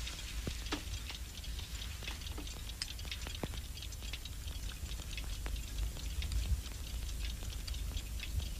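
Steady low hum with many faint, irregular clicks and crackles, the background noise of an old film soundtrack.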